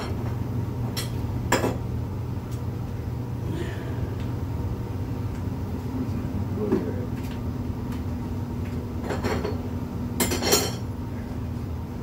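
A few small, sharp metallic clicks and clinks, a cluster of them near the end, as a valve core is refitted into a dirt-bike tube's valve stem, over a steady low background hum.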